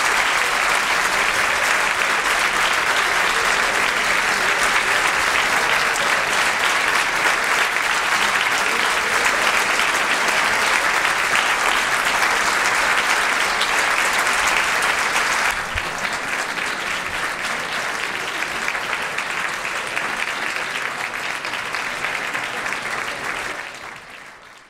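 Audience applauding steadily at the end of a concert-band piece. The clapping drops a little in level about two-thirds of the way through, then fades out at the end.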